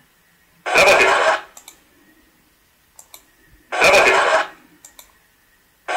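Two short, loud vocal bursts about three seconds apart, with faint clicks between them.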